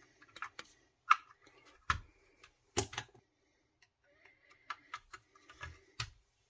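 Small hard clicks and taps of computer parts being handled and fitted together, coming irregularly, about a dozen in all.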